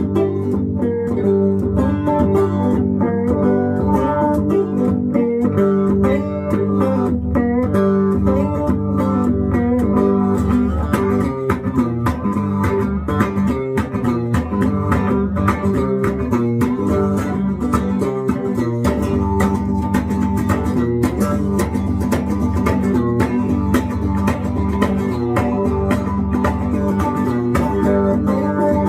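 Guitar played continuously in a bluesy style, with picked notes and strums throughout.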